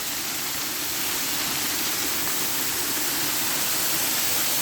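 Steady rushing of water, an even hiss with no other sound standing out.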